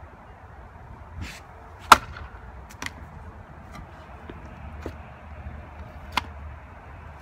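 A steel splitting maul striking a log once, sharp and loud, about two seconds in. Lighter wooden knocks follow as split firewood is moved, with another sharp knock near the end.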